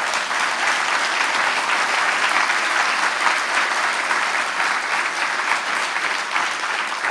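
Lecture audience applauding: many hands clapping together in a steady, dense wash that eases slightly near the end.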